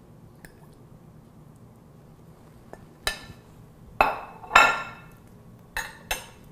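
Ceramic plate set down on a countertop with a fork clinking on it: several sharp clinks with short ringing, the loudest about four to four and a half seconds in, two lighter ones near the end.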